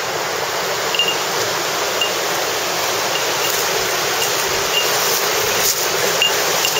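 Mountain river rushing over boulders: a steady rush of water that grows slowly louder, with short high chirps repeating every second or so.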